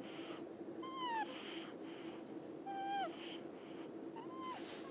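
A young pet snoring in whistling snores. Three times, a short squeaky whistle falls in pitch at its end, with breathy rasps between, about one breath every one and a half seconds. A steady low hum runs behind.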